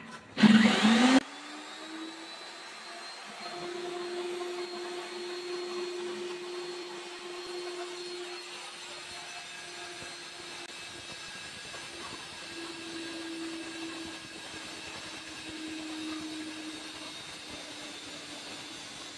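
Stand-mounted electric diamond core drill running as its core bit bores into a concrete roof slab. After a brief loud burst at the start, the motor spins up and settles into a steady whine that swells slightly now and then.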